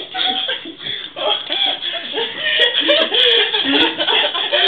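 People laughing hard in quick repeated ha-ha syllables while wrestling on a couch, with a few short knocks partway through.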